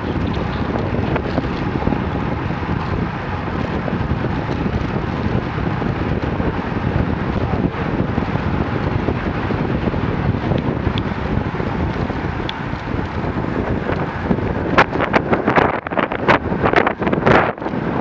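Wind buffeting the microphone of a camera riding on a moving road bike, over steady tyre and road noise from the group of bicycles. In the last few seconds a run of sharp knocks and rattles cuts through.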